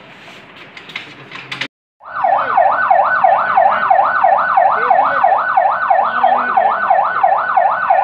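Emergency-vehicle siren in a fast yelp, its pitch sweeping up and down about three times a second, starting about two seconds in. Before it, faint clattering.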